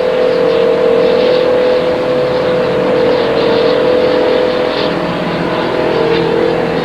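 Loud, steady machine drone with a constant hum, like an engine or motor running at an even speed.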